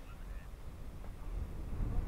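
Wind rumbling on the microphone, with a few short bird calls near the start.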